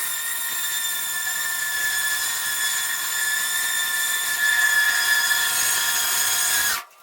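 A high-speed electric motor whining steadily at a high pitch with a hiss, sagging slightly in pitch before it shuts off abruptly near the end.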